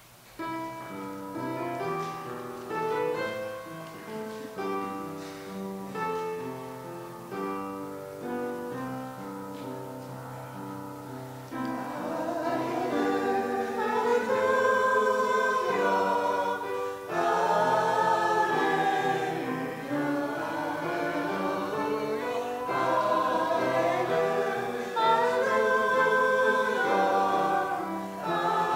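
A church hymn begins with an instrumental introduction of clear, stepping notes. About twelve seconds in, a group of voices joins and sings the hymn over the accompaniment, louder than the introduction.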